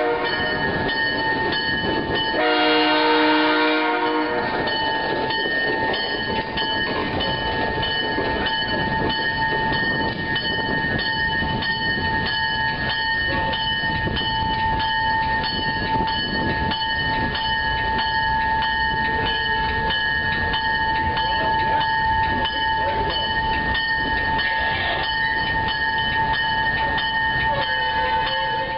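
Train rolling along the rails with a steady rumble and a constant high whine, and the horn blows one loud blast of about a second and a half, starting about two and a half seconds in.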